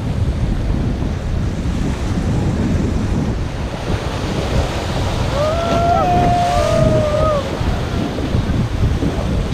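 Rushing river water and wind buffeting the microphone on a rafting boat. About five seconds in, a person lets out a drawn-out shout lasting about two seconds.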